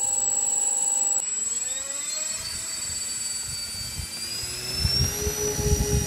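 Freewing OV-10 Bronco RC model's twin electric motors and propellers whining. After a steady whine in the first second, the pitch climbs as the throttle opens for the take-off roll, then holds high. Low rumbling thumps come in near the end.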